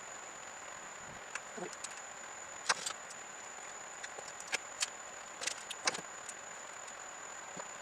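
Scattered light clicks and taps of tools or parts being handled, irregular and short, over a steady hiss with a faint constant high whine.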